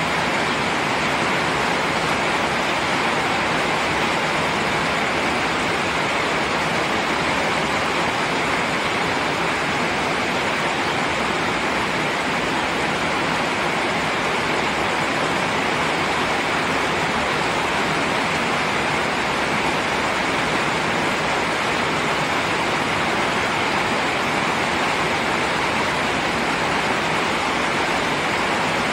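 Steady rain: an even, unbroken hiss of falling water with no single drops or pauses standing out.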